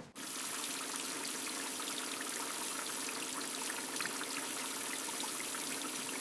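Tap water running steadily into a kitchen sink, with light splashing; it starts abruptly at the very beginning.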